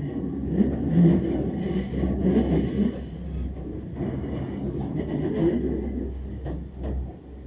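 Enoden electric train heard from inside the carriage, rumbling as it slows into a station. The low rumble dies away near the end as the train comes to a stop.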